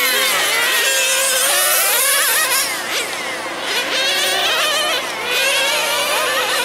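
Several nitro RC sedans' small glow-fuel engines running at high revs together, with many high whining pitches rising and falling as the cars accelerate, brake and pass. There is a brief dip in loudness about three seconds in as the cars move off.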